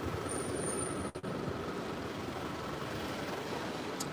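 Steady city street ambience: a low, even hum of traffic. The sound cuts out for a split second about a second in.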